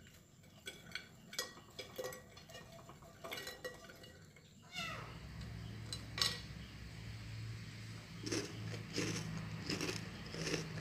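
Light clatter and clicking of crisp caramel-coated bread cubes being tipped from a pan onto a plate. About five seconds in this gives way to a steady low hum with a run of short sounds about twice a second.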